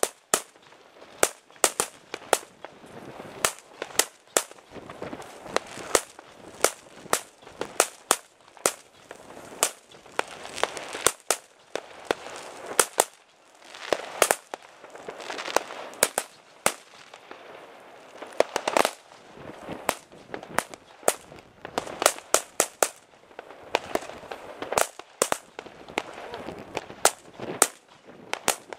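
Firecrackers going off all around: dozens of sharp bangs at irregular intervals, some close and loud, others distant, over a constant background of crackling and far-off bangs.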